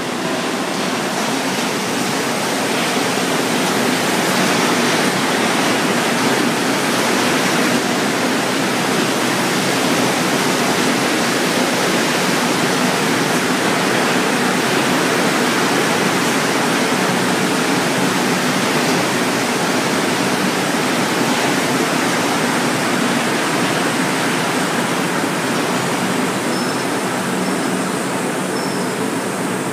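Montreal Metro MR-73 rubber-tyred train running into the station along the platform: a steady, loud rushing roll with a low hum underneath. It slows toward a stop near the end.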